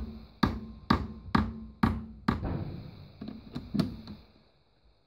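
Hammer tapping a toothed HTD timing-belt pulley held in a mini lathe's three-jaw chuck, seating it in the jaws. Six sharp knocks come about half a second apart, then three lighter ones near the end.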